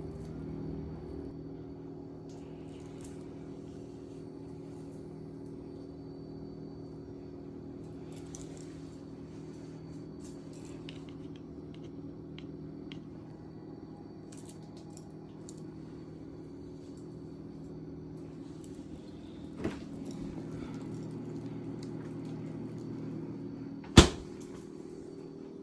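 Steady mechanical hum, like a household appliance running, with scattered small clicks and one sharp, loud click or knock near the end.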